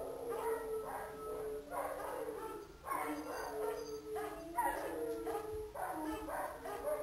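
A group of golden jackals howling and yipping in a chorus: several overlapping high, wavering wails with short yips, going on without a break.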